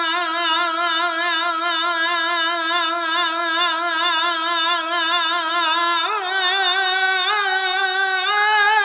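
A single voice singing a Punjabi Sufi song holds one long note with a wide vibrato, then steps up to a higher note about six seconds in with a few short ornamental turns.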